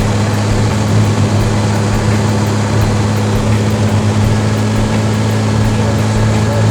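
Cessna L-19 Bird Dog's six-cylinder engine and propeller running at a steady drone, a constant low hum with a strong steady note over an even rushing noise.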